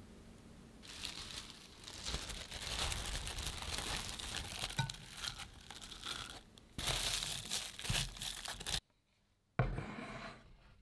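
Plastic cling film crinkling and tearing as it is pulled and pressed by hand onto the surface of chocolate glaze in a glass jug. After a short silence near the end comes a single sharp knock, as a wooden board is set down.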